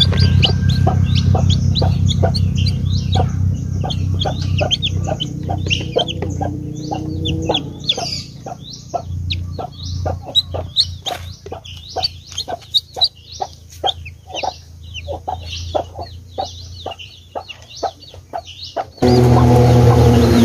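Newly hatched Rhode Island Red chicks peeping constantly, many short, high, falling peeps close together. About a second before the end, loud music cuts in abruptly.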